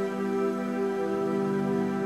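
Slow meditation music of sustained, droning tones with many overtones; a lower tone comes in about a second in and holds.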